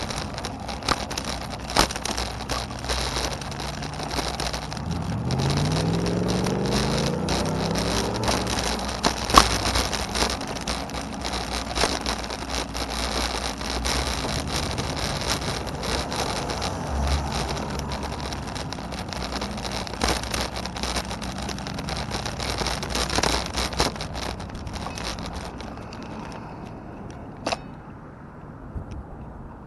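A car's engine and road noise, the engine rising in pitch as it speeds up about five seconds in, over a steady rush with frequent crackles. The noise dies down near the end.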